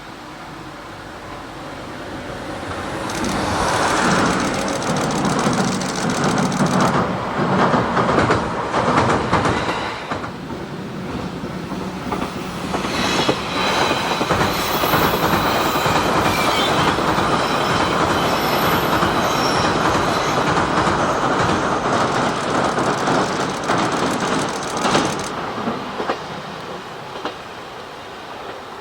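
Train passing along the track, its wheels clattering over the rail joints with some squeal. It builds from a few seconds in, stays loud for about twenty seconds with a brief dip, then fades away near the end.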